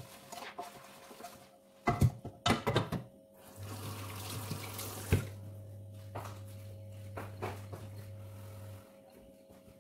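A frying pan clattering against the sink in a few loud knocks, then the kitchen tap running steadily for about five seconds as hands are rinsed under it, with one more knock partway through; the water stops near the end.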